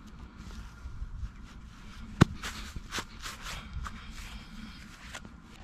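Rustling and scraping of digging and handling soil and grass while recovering a find, with one sharp click about two seconds in and a run of short scrapes just after it.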